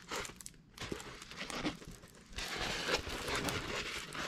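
Clear plastic film on a diamond painting canvas crinkling in short on-and-off spells as hands handle and smooth the canvas flat.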